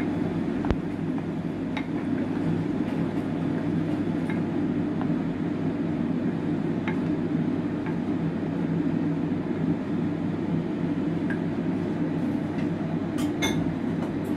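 Steady low mechanical hum with a few light clicks and clinks of kitchen utensils against dishes scattered through it.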